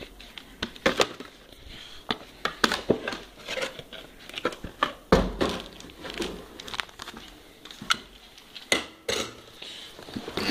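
Packaging being handled: plastic wrapping crinkling and rustling with scattered clicks and knocks, and one louder knock about halfway through.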